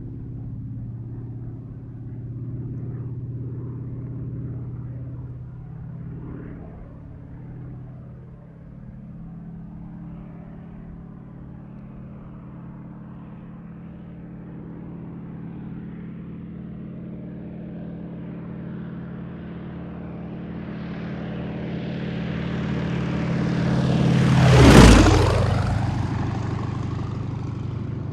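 Single-engine propeller airplane running steadily, then drawing closer and passing overhead about 25 seconds in, its engine note dropping in pitch as it goes by and moving away.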